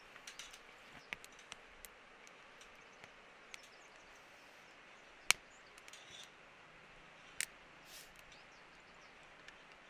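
Quiet outdoor background with scattered light clicks and taps. Two sharp knocks come about five seconds and seven and a half seconds in, the first the loudest.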